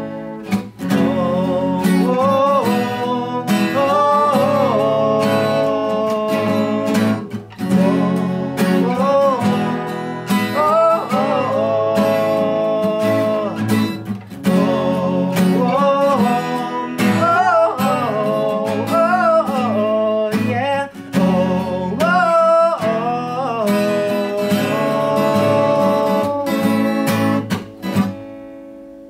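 Two acoustic guitars playing a song together, ending on a final chord that is left to ring and fade near the end.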